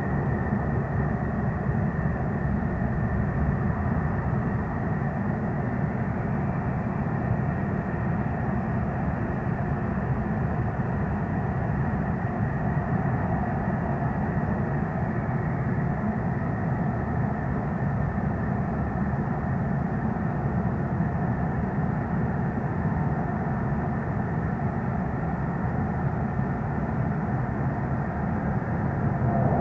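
Military jet engines running on the runway: a steady rumble with a thin high whine on top. It grows louder near the end as a jet on the runway centreline powers up for takeoff.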